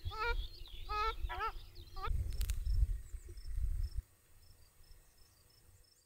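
A few wavering bird calls in the first two seconds, over wind rumbling on the microphone. After that, faint high-pitched insect chirps repeat about three times a second.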